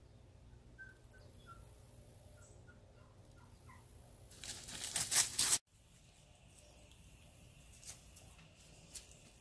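A few faint high chirps over quiet outdoor background, then a loud crackling rustle for about a second that cuts off abruptly.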